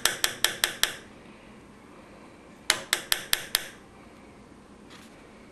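Small hard parts clicking and knocking together in the hands: two quick runs of sharp, bright clicks, about five a second, one at the start and one about three seconds in.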